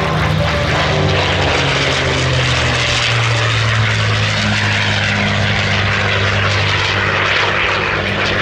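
P-51 Mustang's Rolls-Royce Merlin V12 engine in a low pass, loud and steady, its pitch falling as it goes by.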